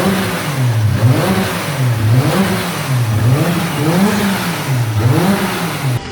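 Freshly rebuilt, turbocharged Toyota 2JZ straight-six in a Nissan 180SX being revved in repeated blips, its note rising and falling about once a second, five or six times.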